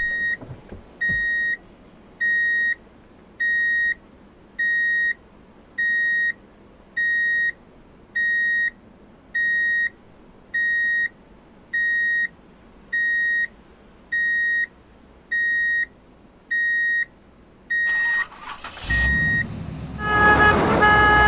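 Reversing alarm beeping steadily, one even beep about every 1.2 seconds. Near the end a vehicle rumble builds and a horn sounds twice.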